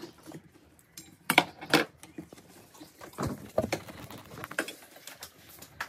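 Handling noise: a handful of separate sharp knocks and clicks, spaced unevenly, from utensils and ingredients being moved about during food preparation.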